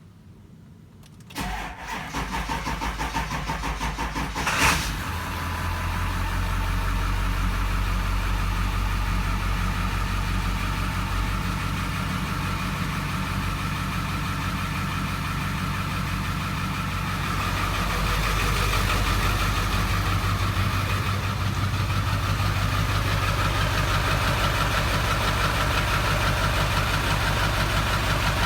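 An engine cranks for about three seconds, catches with a short loud rev, then settles into steady running at idle, with the idle note shifting a couple of times later on. The slow start marks it as a hard-starting engine.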